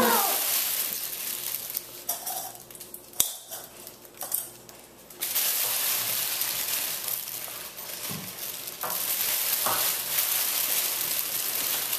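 Clear cellophane gift wrap crinkling and rustling loudly as it is torn and pulled off a basket. About two seconds in it eases into a quieter few seconds broken by one sharp click, then the loud crinkling picks up again.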